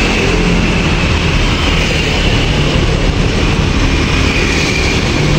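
A motor vehicle's engine running steadily, a low hum under an even hiss with no change in pace.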